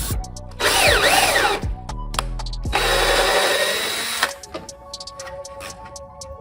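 A power tool runs in two short bursts, its pitch sweeping up and down, over background music. After about four seconds the tool stops and only the music remains.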